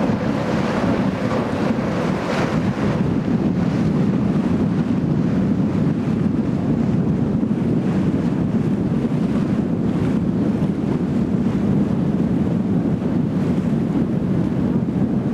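Wind buffeting the microphone on a moving river passenger boat, over water washing past the hull and the boat's engine running steadily underneath.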